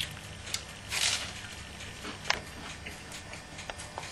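Faint handling and eating sounds: a short breathy hiss about a second in and scattered small clicks, the sharpest a little after two seconds.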